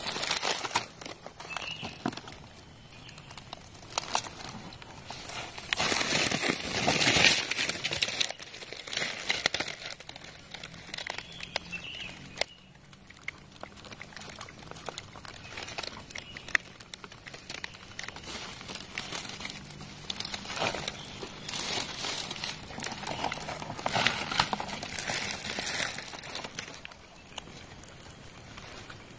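Dry palm fibre and soft rotting palm wood being scraped and pulled apart by gloved hands and a stick: irregular crackling and rustling with small clicks, loudest about six to seven seconds in.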